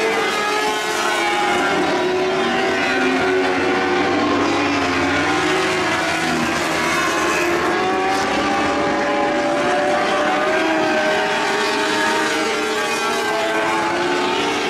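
Several lightning sprint cars racing together on a dirt track, their engines running hard. The engines overlap in a continuous drone whose pitches rise and fall as the cars go through the turns.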